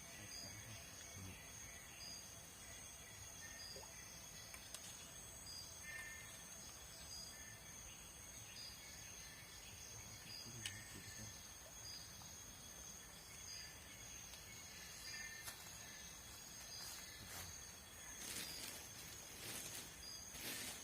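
Faint chorus of forest insects: steady high shrill tones, with a short chirp repeating about once a second. Some rustling comes in near the end.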